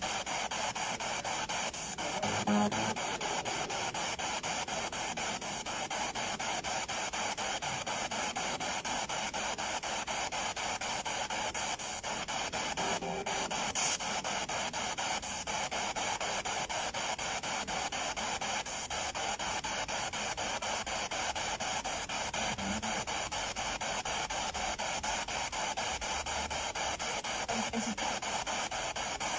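Spirit box sweeping rapidly through radio stations: a steady, rapidly chopped static hiss, with a few brief snatches of sound breaking through.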